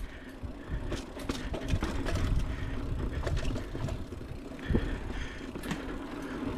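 Mountain bike being ridden on a dirt trail: tyres rolling over dirt, with clicks and rattles from the bike as it goes over bumps.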